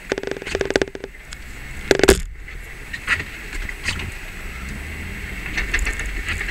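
A camera tapping and chattering against a Jeep's front windshield in quick runs of clicks, loudest about two seconds in, over the low rumble of the Jeep moving slowly along a rough trail.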